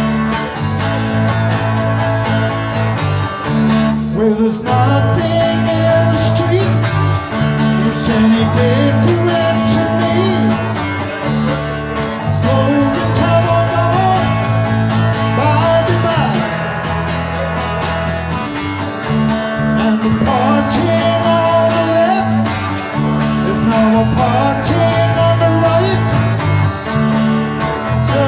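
A live band plays a song: strummed acoustic guitar, electric bass and tambourine keep a steady beat. From about four seconds in, a wavering melody line joins them.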